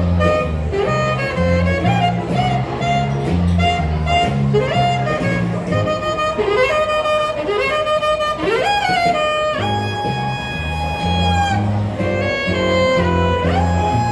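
Jazz-style music: a lead melody that slides up and down between notes over a bass line stepping from note to note.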